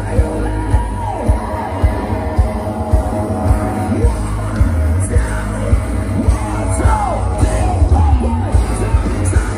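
Loud music with a steady bass and singing and yelling voices, with a few sharp cracks here and there.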